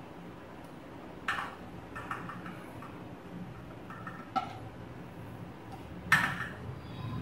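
Dough being rolled out with a rolling pin on a round rolling board: three sharp knocks of pin and board, the loudest near the end, over a low steady hum.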